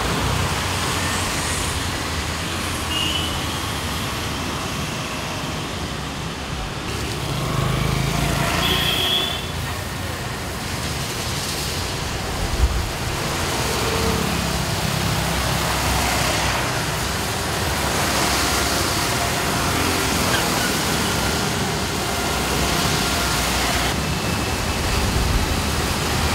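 Slow traffic in a flooded underpass: vehicle engines running and tyres going through water on the road, among them an Ashok Leyland CNG city bus moving past. The engine sound swells for a moment about eight seconds in, and there is one sharp knock about halfway through.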